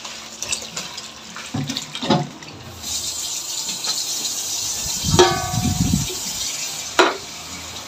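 Canned fruit cocktail and its syrup being poured from the can into a wire-mesh strainer over a stainless steel basin: a steady pouring splash, with a few knocks along the way.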